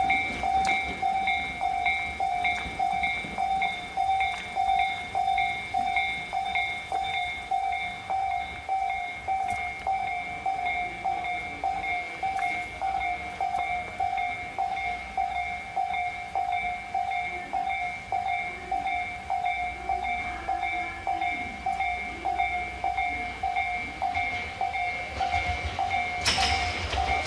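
Electronic warning bell of a Japanese railway level crossing ringing in an even, repeating clang, the sign that the barriers are down and a train is due. Near the end the rumble of a train rises as it comes through.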